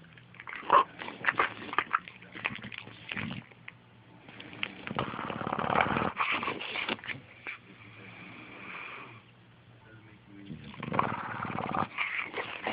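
English bulldog snoring in its sleep: three long, noisy breaths a few seconds apart, with a faint whistle in the lull between the second and third.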